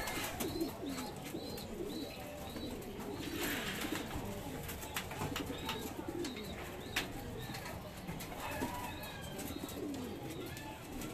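Several racing pigeons cooing in a loft, their low calls overlapping, with scattered light clicks and a brief rustle about three and a half seconds in.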